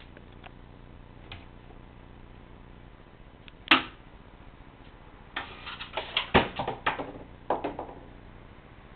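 Wooden knocks and clatter from a tabby cat getting into a small wooden wall cupboard and scrambling back down onto a wooden chest below: one sharp knock a few seconds in, then a run of clattering knocks for about two seconds.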